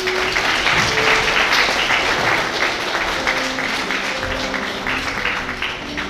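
Audience of many people applauding, fullest about a second or two in and easing slightly after that, over music with held notes.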